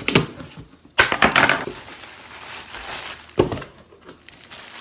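Cardboard shipping box being torn open by hand: a few sharp knocks at the start, a loud rip of tape and cardboard about a second in, another sharp knock a few seconds later, and a plastic bag rustling as it is pulled from the box near the end.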